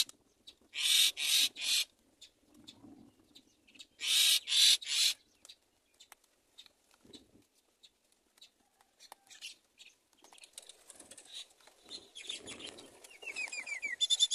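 Baby myna in the nest giving harsh, hissing begging calls for food, short bursts in groups of three, twice in the first five seconds. Near the end a soft low rustle and a few short chirps and falling whistled notes from birds.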